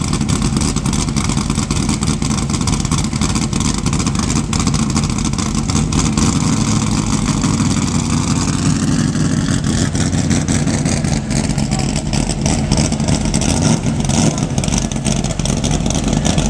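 Oval-track stock car's race engine running loud through side-exit exhaust pipes. Around the middle it is revved once, the pitch climbing over several seconds.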